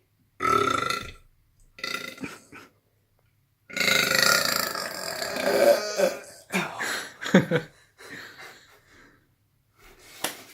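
A series of deliberate burps. A short one comes about half a second in and another around two seconds, then a long drawn-out burp starts about four seconds in and trails off into several shorter ones.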